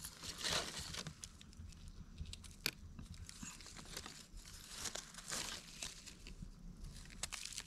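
Hands rustling dry leaf litter and soil while digging a wild mushroom out of the forest floor: faint crinkling and scraping, with one sharp click a little under three seconds in.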